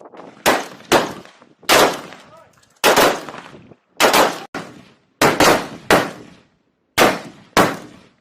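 Rifles firing single shots on a range: about eleven sharp reports at uneven intervals, some in quick pairs and triplets, each trailing off in echo.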